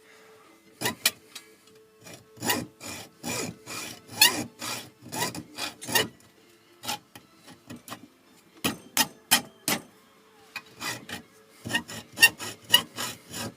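Rasping strokes of a hand tool working into a thermostatic radiator valve's head, coming in short irregular runs with brief pauses between them.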